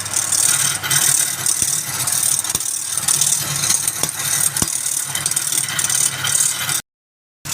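Wood lathe running, a steady motor hum under a hiss, with a few sharp clicks; the sound cuts out for about half a second near the end.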